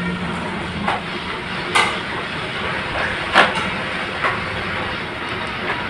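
Steady vehicle rumble with five sharp knocks spread through it, the loudest about three and a half seconds in.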